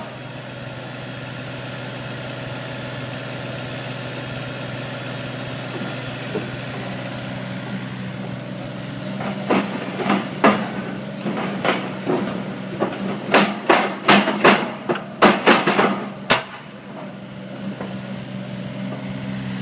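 TESCAR CF3 mini piling rig running with a steady engine-and-hydraulic hum; about halfway through, a quick run of a dozen or so sharp clanks over some seven seconds as the soil-laden drilling bucket is lifted out of the bore and worked.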